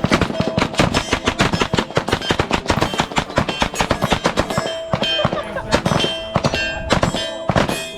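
Rapid, overlapping gunshots from several shooters firing at once, several shots a second in an irregular rhythm.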